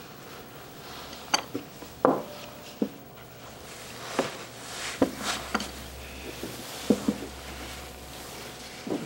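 Irregular short knocks and clicks, about a dozen scattered over several seconds, over a quiet steady background, like handling sounds in a small room.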